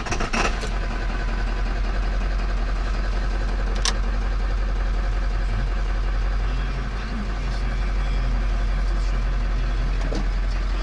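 Ford 7.3L Power Stroke V8 turbo-diesel idling just after a slow cold start, heard from inside the cab; a single sharp click about four seconds in. It is running badly, typical of an injection-pressure fault, which the owner puts down to the high-pressure oil pump and a listener to a bad injector.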